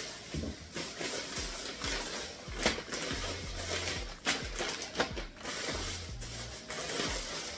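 Thin plastic grocery bags rustling and crinkling as groceries are pulled out and set down on a counter, with a few sharp knocks of items landing. Soft background music underneath.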